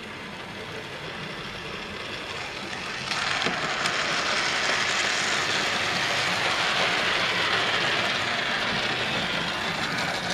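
An 00 gauge model train, a B17 locomotive hauling wagons, running past on Peco Streamline code 100 track, with the motor whirring and the wheels rattling along the rails. It grows louder as it comes near and is loudest from about three seconds in. The train is running smoothly.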